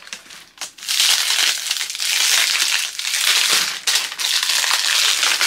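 Clear plastic wrapping crinkling as it is handled and pulled off a new sneaker: a few light crackles, then near-continuous crinkling from about a second in.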